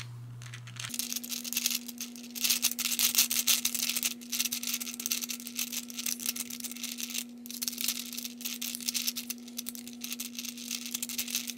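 Plastic balls of a Hungarian Rings puzzle clicking and rattling in their circular tracks as the rings are turned, a dense run of small irregular clicks starting about a second in.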